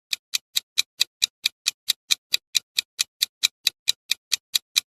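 Quiz countdown timer sound effect ticking steadily, about four to five ticks a second.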